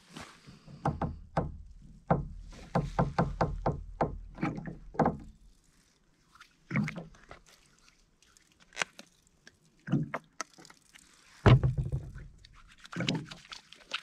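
A quick run of sharp knocks and taps, then scattered single thumps, the loudest a little past two-thirds through. Near the end, water starts trickling from a plastic water jug's spigot onto hands.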